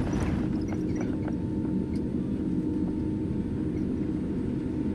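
Steady low rumble of engine and airflow noise heard inside the cabin of a Boeing 787-8 airliner on its landing approach, with a faint steady whine above it. A brief hiss comes at the very start.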